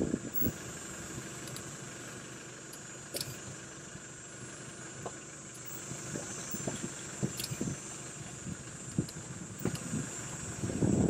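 Safari vehicle's engine running steadily, with scattered light knocks and a few louder low thumps near the end.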